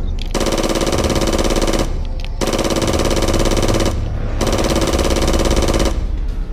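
Electronic toy-gun machine-gun sound effect: a fast, buzzing rattle with a steady electronic tone, fired in three bursts of about a second and a half with short pauses between them.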